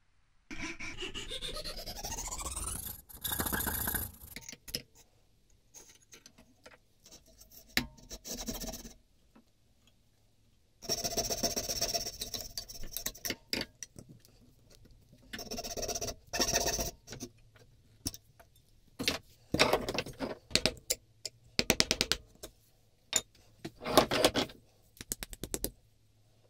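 Hand tools working a small block of boxwood: a rising squeal near the start, then a series of separate rasping, scraping strokes on the wood, broken by a few sharp knocks.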